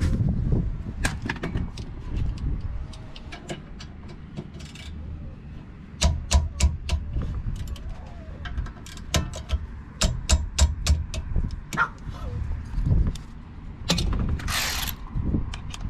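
Hand ratchet with a 12 mm socket clicking in quick runs as it turns a rear brake caliper bolt, with knocks of tools against the brake parts. A short scraping hiss near the end.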